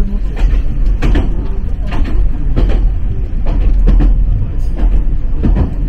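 Ichibata Electric Railway train running, heard from inside the car: a steady deep rumble with a sharp clack from the wheels on the track about every second.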